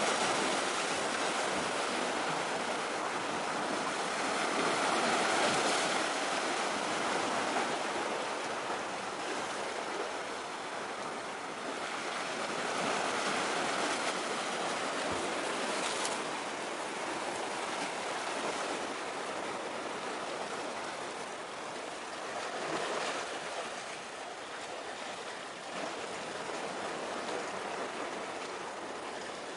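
Sea surf washing, a steady rushing noise that swells and eases every several seconds.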